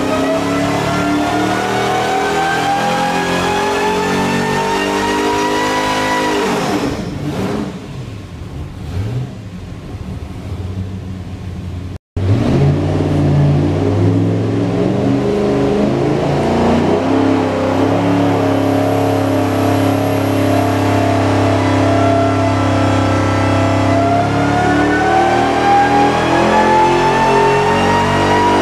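Whipple-supercharged 540 cubic-inch big-block marine engine under load on a dyno. Its pitch climbs steadily through a pull for about six seconds, then falls away as the throttle comes off. After an abrupt cut it holds a steady speed, then climbs through a second sweep near the end, to about 5,600 rpm.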